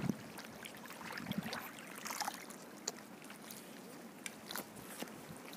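Small wind-driven waves lapping at the river's edge: a low, even wash of water with a few faint ticks and splashes.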